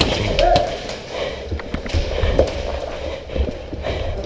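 Large lugged rubber tire rolling and being shoved over a concrete floor: a low rumble broken by frequent knocks and bumps.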